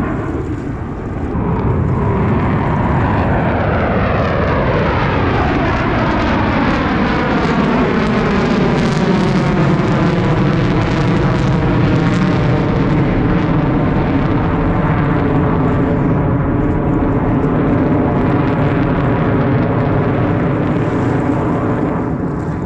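Jet engines of Blue Angels F/A-18 Super Hornets passing overhead: a loud, continuous jet rush. In the first several seconds it carries a falling, sweeping tone as the jets go by, then settles into a steady rumble.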